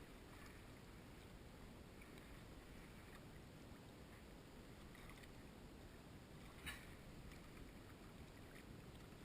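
Near silence: a faint steady background hiss, with one short faint click about two-thirds of the way through.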